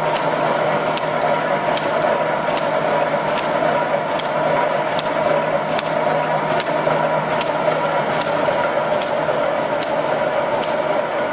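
Steel wire mesh welding machine running, with a sharp clack about every 0.8 s from its working cycle over a steady mechanical hum.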